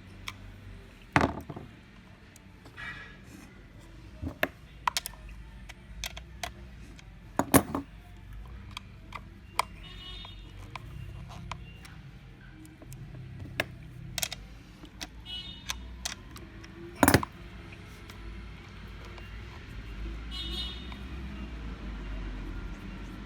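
Irregular metallic clicks, knocks and clinks of hand tools and parts being worked on a chainsaw's bar and chain, a few with a brief metallic ring; three sharper knocks stand out over the scattered ticking.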